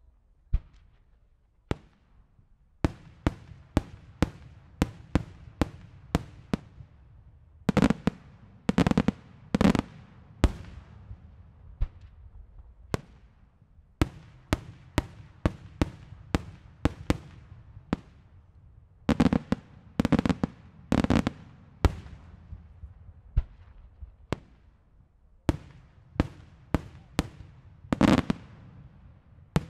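Daylight fireworks display: aerial shells bursting overhead in a rapid, irregular string of sharp bangs, each trailing off in echo. The louder reports come in heavier clusters about eight seconds in, around twenty seconds, and near the end.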